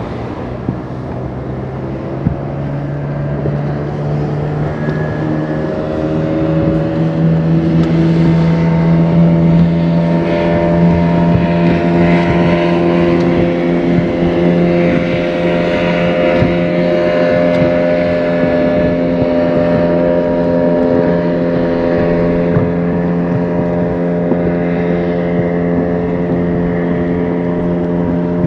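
Outboard motor of an inflatable boat running under way, with a steady hum that rises a little in pitch and loudness a few seconds in as the throttle opens, then holds steady. Wind and water hiss run underneath.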